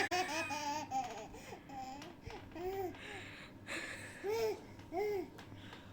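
Baby laughing softly in a string of short giggles that trail off after the mother's mock sneeze. Two slightly louder laughs come about four and five seconds in.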